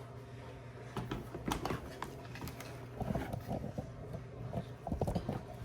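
Plastic toy parts being handled and pushed into place: scattered sharp clicks, then a few short rough scraping and rustling noises about three seconds in and again near the end.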